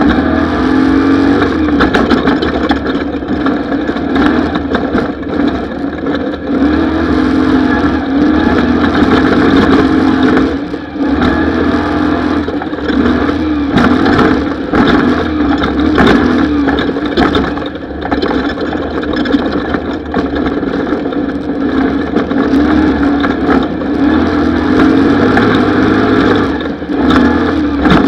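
Off-road desert race vehicle's engine running hard, its pitch rising and falling as the revs climb and drop, with frequent sharp knocks throughout.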